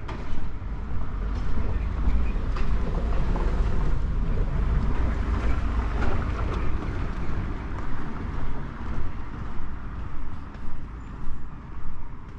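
Street traffic: a large road vehicle passes with a heavy low rumble, loudest over the first half and fading after. Regular soft thuds about every half second to second, typical of the walker's footsteps.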